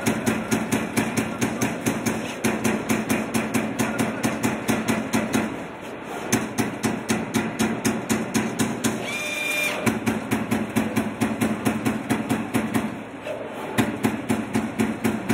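CNC punch press punching sheet steel in rapid runs of strikes, about five a second, with short pauses between runs. A brief high-pitched whine sounds about nine seconds in.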